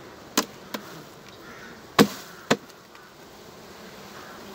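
Four sharp knocks, two about half a second in and two louder ones about two seconds in, as a bee-covered queen excluder grid is rapped against the hive box to shake the honeybees off it. The bees hum steadily underneath.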